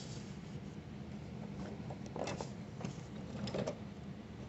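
Domestic sewing machine running steadily, stitching through leather laid over fabric, with a few light clicks.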